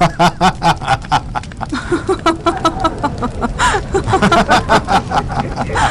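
A man laughing heartily, a long unbroken run of quick 'ha-ha' bursts at about five a second.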